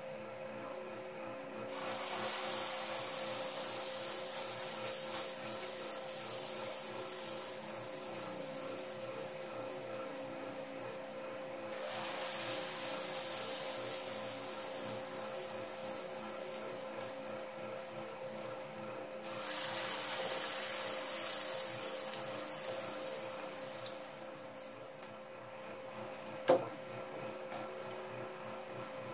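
Squash patty batter sizzling in hot cooking oil in a frying pan, the sizzle swelling suddenly three times as more batter goes in and then settling. A steady low hum runs beneath, and a single sharp knock comes near the end.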